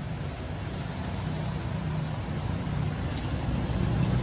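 Steady low outdoor rumble with no distinct events, growing slowly louder toward the end.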